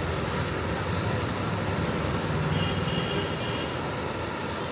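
Steady low rumble of road traffic passing on the street, with a faint high tone briefly about halfway through.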